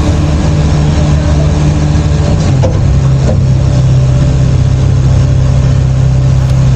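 Crane's diesel engine running steadily, its pitch dropping slightly about two and a half seconds in.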